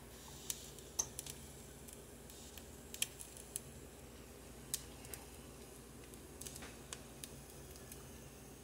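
Scattered light clicks and taps at irregular intervals, typical of handling utensils and food in a kitchen, over a faint steady hum.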